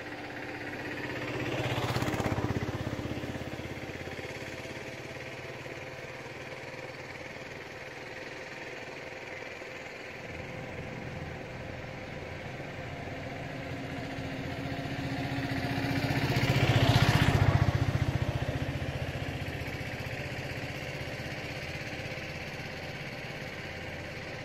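Motor vehicles passing by twice, each swelling up and fading away over a few seconds, about two seconds in and again about seventeen seconds in, over a steady engine hum.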